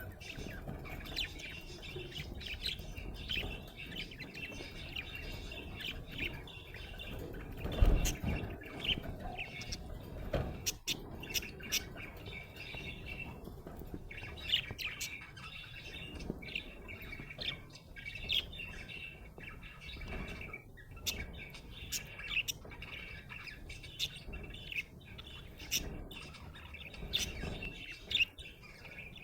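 Budgerigar chirping and warbling continuously, a steady stream of short high chirps and squawks. A low thump about eight seconds in is the loudest sound.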